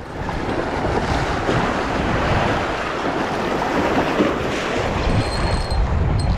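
Surf washing on the beach and strong wind buffeting the microphone, a steady rush, with the low wind rumble growing heavier about five seconds in.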